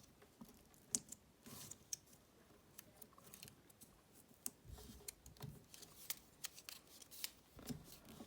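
Faint paper crinkling and sharp little clicks as a paper coin wrapper is folded and pressed shut over a roll of quarters.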